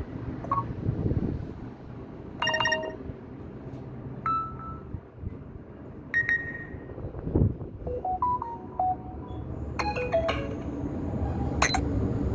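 Samsung Galaxy A04s notification tones played one after another: about seven short chimes and beeps, each a different little tune, over a low background noise, with a dull thump about halfway through.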